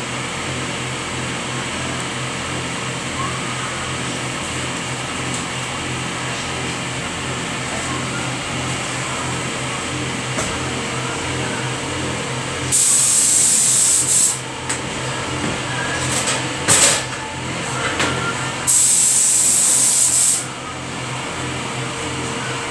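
Spray booth ventilation fan humming steadily. About halfway through, a compressed-air gravity-feed spray gun starts hissing in bursts as a coat of finish goes onto a wooden louvered shutter: a burst of about a second and a half, a few short blasts, then another longer burst.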